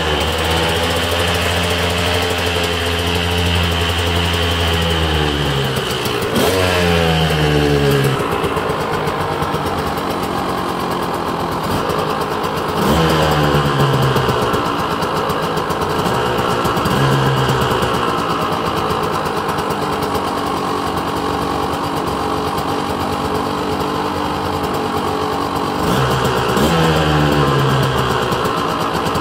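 Two-stroke KTM dirt bike engine idling, revved up in short throttle blips that rise and drop back to idle several times, in an underground parking garage.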